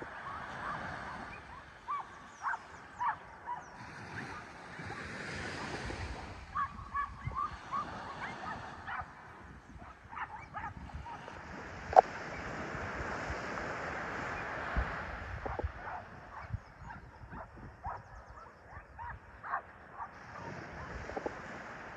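Wind and surf noise, with a string of short sharp taps and clicks scattered through it and one much louder click a little past halfway.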